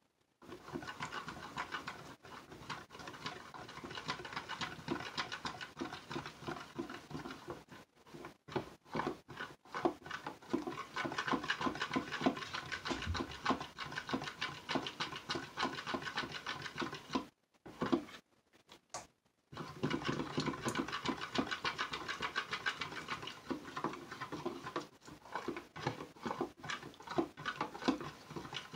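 A metal fork stirring rapidly and scraping inside a plastic pitcher, mixing lye solution to dissolve silk. The stirring is quick and scratchy, stops for a couple of seconds about two-thirds through, then goes on.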